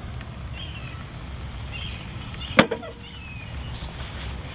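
One sharp click a little past halfway, over steady low outdoor background noise with a few faint high chirps.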